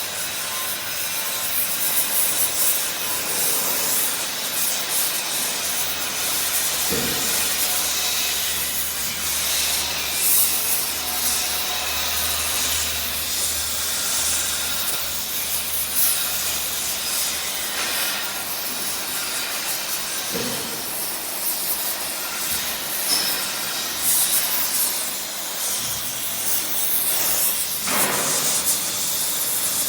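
Stick arc welding on cast iron with a 3.2 mm cast-iron electrode at about 90 A: a steady crackling, hissing arc. A low hum runs under it from about six to eighteen seconds in.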